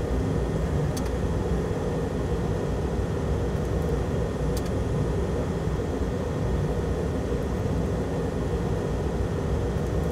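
Steady cockpit noise of a Citation jet in flight, produced by the flight simulator: an even rushing drone with a faint click about a second in and another near the middle.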